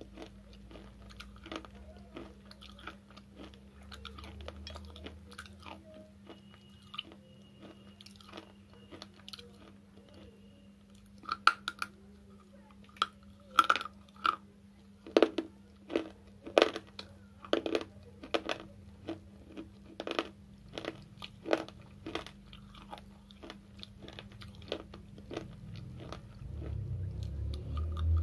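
Dry slate chips being bitten and chewed close to the microphone: a long series of sharp, crisp crunches, sparse and quieter at first, then a dense run of loud bites from about eleven seconds in. A steady low hum runs underneath.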